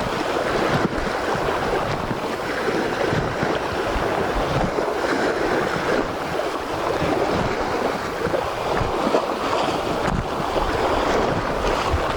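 Sea surf washing steadily, with wind buffeting the microphone in low rumbling gusts.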